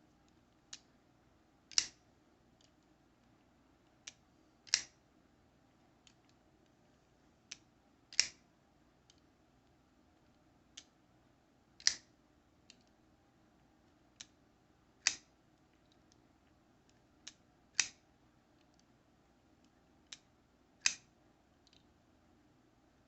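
Artisan Cutlery Large Archaeo folding knife with copper scales and a liner lock being fidgeted open and shut over and over: about every three seconds a light click, then a second or less later a loud sharp snap of the blade, seven times.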